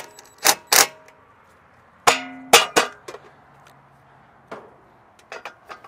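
Metal knocks and clanks from a sheet-metal AC disconnect box being loosened on its masonry screws and shifted level against the brick wall. A louder ringing clang comes about two seconds in, with a few lighter clicks near the end.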